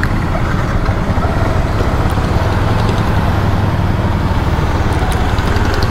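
Yamaha R15 V3 motorcycle's single-cylinder engine running steadily as the bike pulls away and rides slowly.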